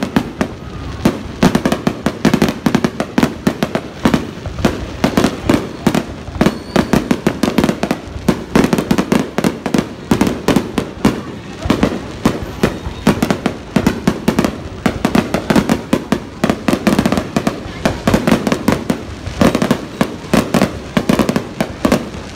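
Aerial fireworks display: a rapid, continuous barrage of sharp bangs and crackles, with crowd voices underneath.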